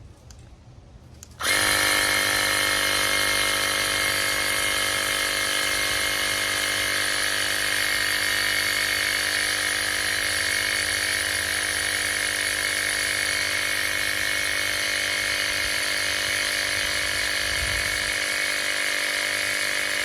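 SOWINK 150 PSI cordless tire inflator's electric compressor switching on about a second and a half in and running steadily as it pumps up a basketball through a needle adapter, a loud, even buzzing hum.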